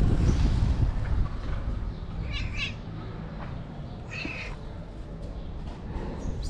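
Tabby cat meowing twice, two short high calls about two seconds apart. Under them, a low rumble that is loudest in the first second and then dies down.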